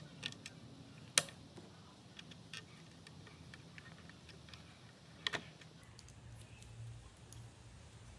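Sharp plastic clicks of a CPU cooler's push-pin fasteners being pressed into the motherboard's mounting holes: one loud click about a second in, a quick double click a little after five seconds, and fainter ticks between.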